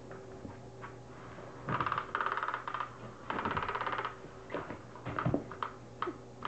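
Undercover Mouse cat toy's motor driving its wand under the nylon cover: two runs of rapid, even clicking about a second long each, about two seconds in and again shortly after. These are followed by scattered single light clicks.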